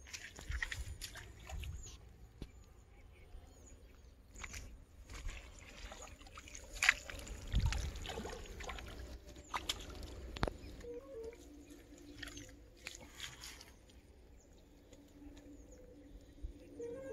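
Water splashing as a hooked tilapia thrashes at the surface and is pulled out of the pond, with scattered clicks and knocks and a heavier thump about halfway through.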